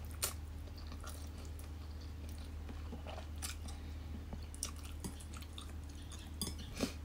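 A person slurping and chewing instant noodles from chopsticks, with scattered short wet mouth smacks and clicks over a steady low hum.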